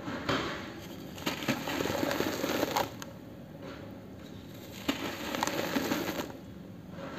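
Hands crushing lumps of crumbly cement, grit and powder crunching and trickling down into a basin. It comes in bursts, with a quieter pause of about two seconds in the middle.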